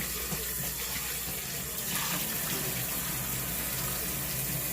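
Kitchen tap running steadily into a sink, water splashing over chicken pieces being washed.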